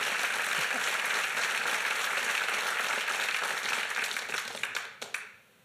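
Audience applauding, a dense even clatter of many hands that fades away near the end.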